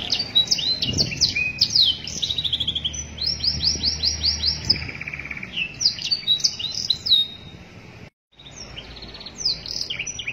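Domestic canary singing a long, varied song of fast trills and rolling runs of rapidly repeated high notes. The song cuts out for a moment about eight seconds in, then carries on.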